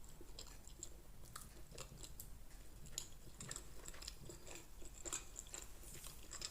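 A person chewing a mouthful of barbecued tempeh and rice close to the microphone: faint, irregular wet smacks and clicks of the mouth.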